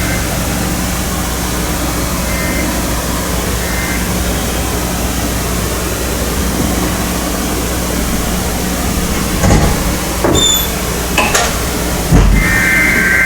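Steady hiss of radio static from a weather radio receiver, with a low hum under it. Several sharp clicks and knocks come in the last few seconds, and near the end a steady high two-pitch tone starts, like the start of an EAS data header.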